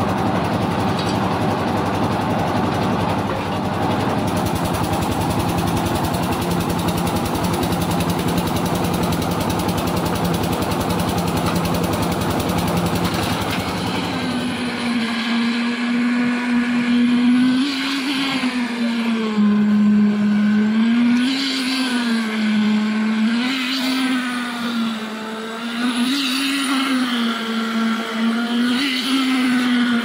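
A concrete mixer running, a dense steady machine noise with an engine note under it. About halfway through it gives way to the high hum of a concrete needle vibrator working in wet concrete, its pitch dipping and recovering every two to three seconds as the poker is pushed into the mix and drawn out.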